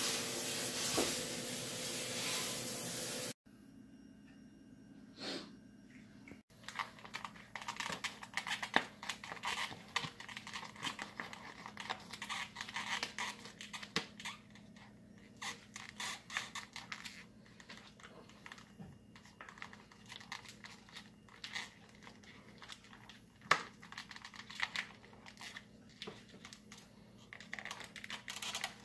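A steady hiss for about the first three seconds that cuts off suddenly. Then plastic meat packaging crinkling and crackling as it is handled and snipped open with scissors, in many small irregular clicks and rustles.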